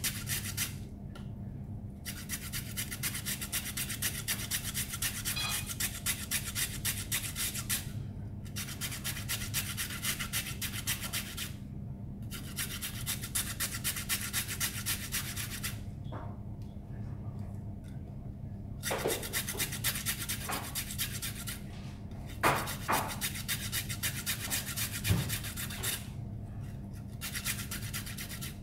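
Carrot being grated on a handheld metal flat grater: quick, rhythmic rasping strokes in runs with brief pauses between them. A few sharper knocks come in the second half.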